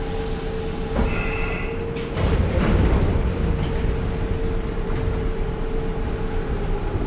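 Interior of an ex-Tokyo Marunouchi Line subway car in motion. For about the first two seconds the wheels squeal with a hiss, then a louder low running rumble of wheels on rails takes over, all under a steady hum.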